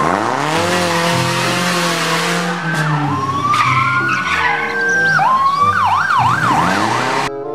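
Police car sirens over a rushing noise of passing cars. The siren rises into a held wail, then switches near the end to a fast yelp that sweeps up and down several times, before the sound cuts off abruptly.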